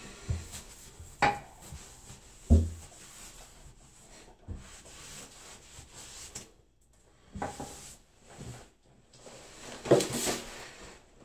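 A sponge wiping over freshly hung wallpaper: soft, irregular rubbing against the wall, broken by a few scattered knocks and bumps, the loudest of them near the end.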